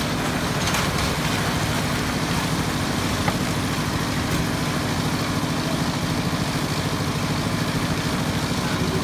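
Engine of construction machinery running steadily with a fast, even chug, powering a concrete pour.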